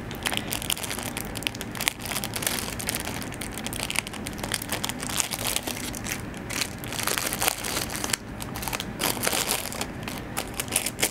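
Plastic and foil test-kit packaging crinkling and crackling as a sealed packet is torn open and its wrapped test cassette pulled out, in an irregular run of sharp crackles.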